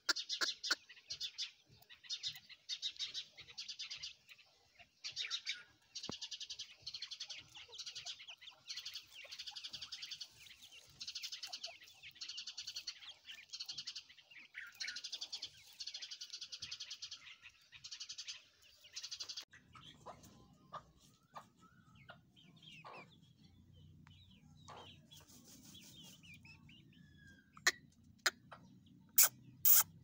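Partridge chicks chirping in rapid, high trills that come in bursts of about a second. About two-thirds of the way through the chirping stops, leaving a low hum with a few scattered calls, and near the end come several sharp clicks.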